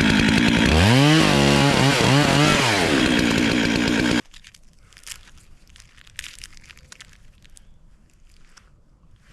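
Stihl MS 441 two-stroke chainsaw running loud, its engine revving up and down several times, then cutting off abruptly a little past four seconds in. Faint crunching and rustling follow.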